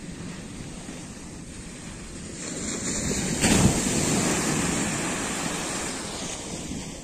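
A small sea wave breaking on a sandy shore and washing up the beach, swelling in about two and a half seconds in, loudest around three and a half seconds, then fading out. Wind rumbles on the microphone throughout.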